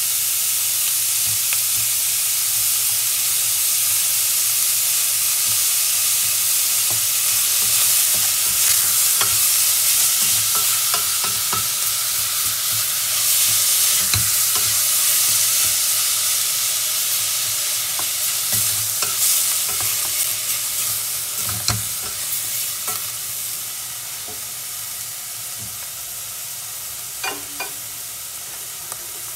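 Ground pork, garlic and onion sizzling in oil in a steel pot, stirred with a wooden spatula that scrapes and knocks against the pot. The stirring stops a few seconds before the end, and the sizzle goes on more quietly.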